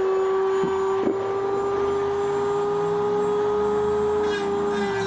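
A motor running steadily with a high-pitched whine that holds almost level and dips slightly in pitch near the end.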